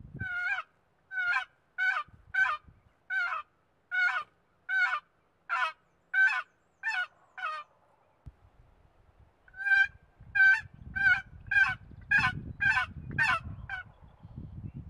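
A loud series of honking, yelping bird calls: about a dozen evenly spaced notes, a pause, then about nine more. A low rustling noise runs beneath the second series.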